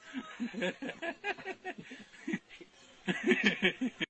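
A person laughing in a run of short bursts, loudest about three seconds in.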